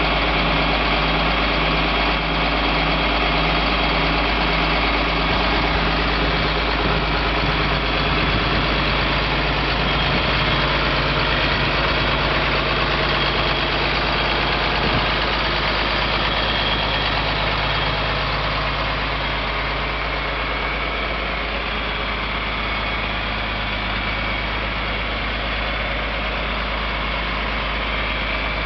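John Deere 4255 tractor's six-cylinder turbo diesel engine running steadily, its note shifting about halfway through and settling a little quieter for the rest.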